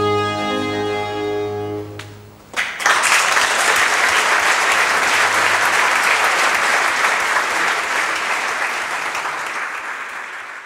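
A baroque string orchestra holds the final chord of an opera aria, which dies away about two seconds in. About half a second later the audience starts applauding, and the applause keeps going, easing off slightly near the end.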